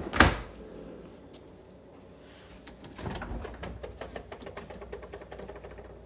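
Stainless-steel French-door refrigerator door pulled open with a sharp thump just after the start. From about three seconds in there is a run of quick light clicks and rattles.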